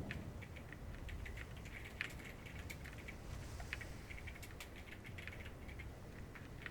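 Irregular light ticking and pattering, several small sharp taps a second at uneven spacing, over a low rumble.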